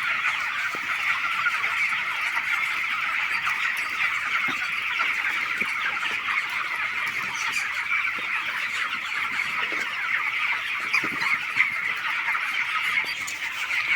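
A large flock of broiler chickens calling together in a steady, dense chorus of overlapping cheeps and clucks.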